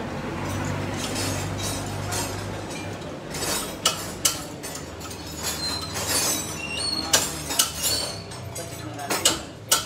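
Sharp metal clinks and taps as bolts are fitted through the lower bracket of a front strut, starting about three and a half seconds in and coming every second or so, each with a short ring. A low steady hum runs under the first few seconds.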